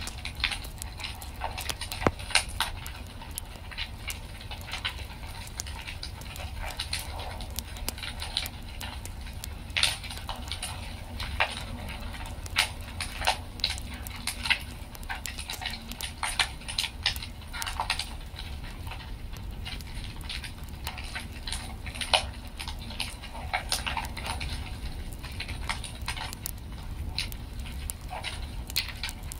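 Wood fire in a fireplace crackling, with irregular pops and snaps over a steady low rumble.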